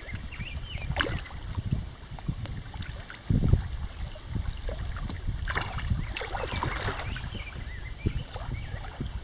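Kayak paddles dipping and splashing in calm river water, with gusts of wind rumbling on the microphone; the strongest gust comes about a third of the way in.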